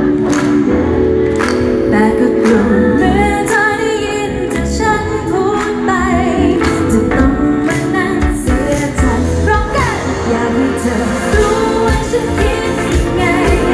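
Live pop band playing: a woman sings the lead over electric guitars, bass and drums with a steady beat.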